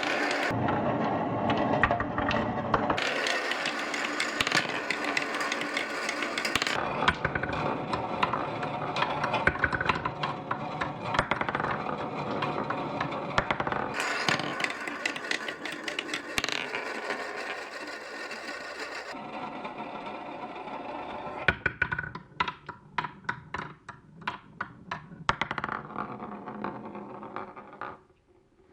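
Clear glass marbles rolling and spinning along a marble run, a dense continuous clattering rattle. About 22 seconds in it thins to separate sharp clicks, a few a second, then fades out near the end.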